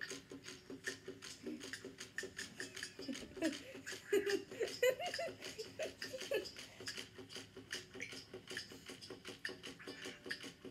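Rapid, steady clicking of a battery-powered Chubby Puppies walking toy's little motor and legs as it walks across a tabletop, with a few short chuckles about four seconds in.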